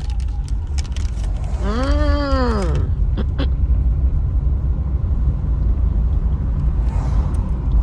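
Low, steady rumble of a car heard from inside the cabin. About two seconds in, a brief pitched sound rises and then falls in pitch.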